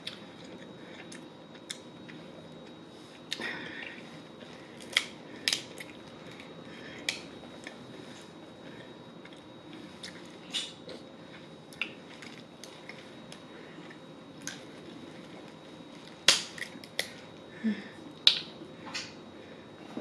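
Crab leg shells cracking and snapping as they are broken and picked apart by hand. Irregular sharp clicks and crunches, with the loudest cluster near the end.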